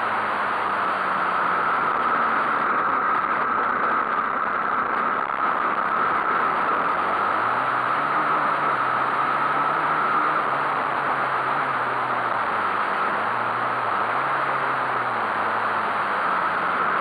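Small-displacement pit bike engine heard onboard while riding a dirt track, revving up and down several times through the turns over a steady hiss of wind and ground noise.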